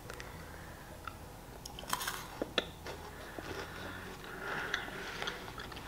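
Quiet chewing of a chocolate-covered wafer candy, with a few short crisp crunches about two seconds in.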